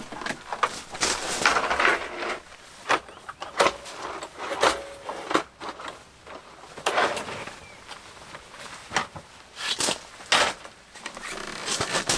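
Fury Gravity hard-shell camp table case being unpacked and set up: plastic latches clicking, the shell halves knocking, and the folding metal frame clacking and rattling as it is unfolded and set down on gravel, with irregular clicks, knocks and short scraping sounds.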